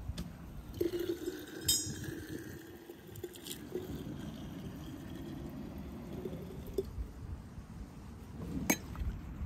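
Liquid poured from an enamel ladle in a thin stream into large glass jars, with a sharp glass clink about two seconds in and another near the end.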